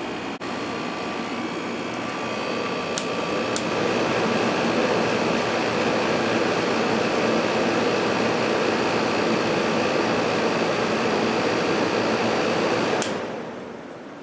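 Hotpoint 8400 BTU window air conditioner running steadily, its fan and compressor blowing. A couple of clicks about three seconds in, after which it runs a little louder, then a click near the end as it is switched off and the running sound dies away.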